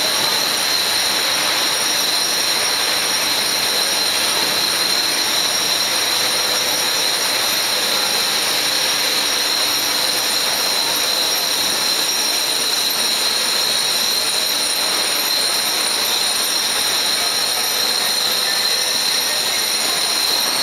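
Steady, loud machinery noise of a working billet continuous casting plant: an unbroken hiss-like roar with several faint high whines held on top, unchanging throughout.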